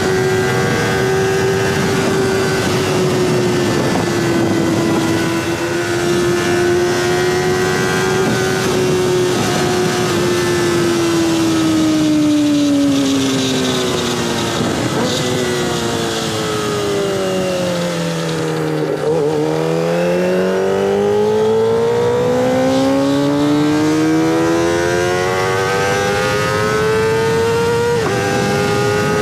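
Kawasaki ZX25R 250 cc inline-four running at high revs through a stainless-steel full-system aftermarket exhaust. The engine note holds high, slowly drops to a low point about two-thirds of the way in, then climbs back up to high revs.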